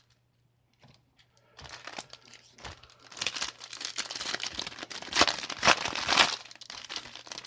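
Trading card booster pack wrapper crinkling and tearing as it is pulled open by hand, starting about a second and a half in and loudest in the middle.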